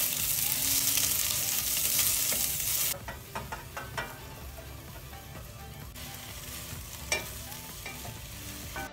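Sliced onion sizzling loudly in hot oil in a stainless steel pot as a wooden spatula stirs it. About three seconds in the sizzle drops sharply and there is a brief clatter as chopped cabbage is tipped in from a metal tray; the cabbage then sizzles more quietly while being stirred, with a single knock of the spatula against the pot about seven seconds in.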